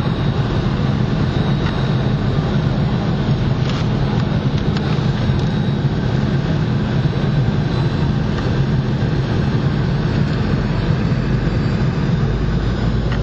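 Steady engine and airflow noise of a Boeing 717, with its rear-mounted Rolls-Royce BR715 turbofans, heard inside the passenger cabin. A deeper low rumble comes in near the end.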